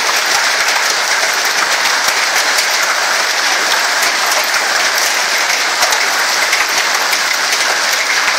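Heavy storm rain drumming steadily on a car's roof and windscreen, heard from inside the car, with many sharp individual hits.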